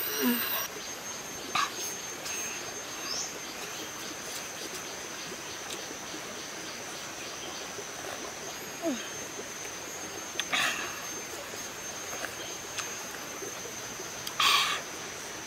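Forest background with a steady, high-pitched insect buzz, broken by a few short slurping and mouth sounds from eating broth off a wooden spoon, the loudest near the end.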